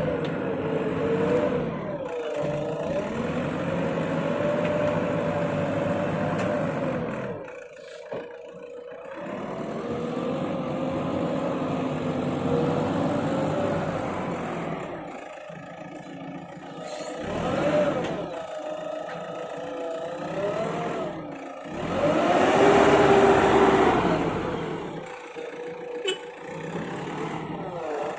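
Excavator's diesel engine working under load, its pitch rising and falling as it revs and eases off, with short lulls between swells.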